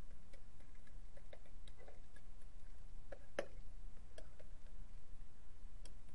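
Scattered light ticks and taps of a stylus on a pen tablet while words are handwritten, with one louder tap about three and a half seconds in, over a low steady hum.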